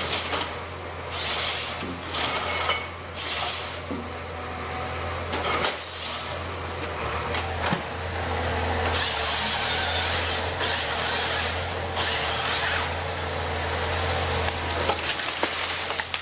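A heavy machine's engine running steadily under repeated bursts of rushing, hiss-like noise, some over a second long and others short, with a few sharp clicks.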